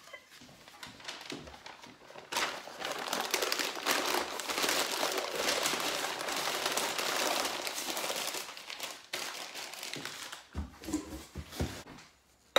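Sheets of white packing paper being crumpled and scrunched around a crystal glass to wrap it, a dense crackling that starts about two seconds in and eases off after about nine seconds. A few soft knocks follow near the end.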